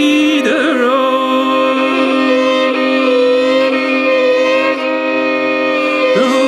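Fiddle playing a slow, ornamented traditional Irish air between sung verses, with a steady drone note held under the melody.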